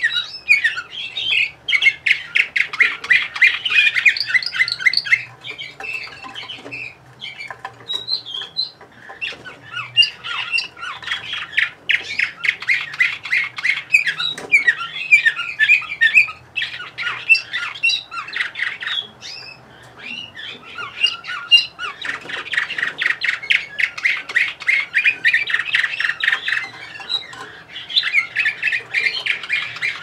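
Canary singing: long phrases of fast trills and rolls, broken by short pauses about a fifth of the way in and again about two-thirds through.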